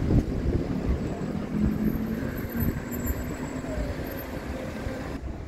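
City street traffic: vehicles passing with a steady engine hum for a couple of seconds, and wind rumbling on the microphone.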